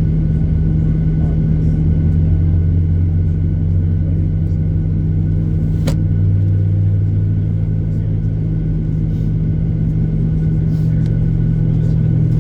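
Steady low drone inside the cabin of a Boeing 737-800 on the ground during engine start, with a single sharp click about halfway through.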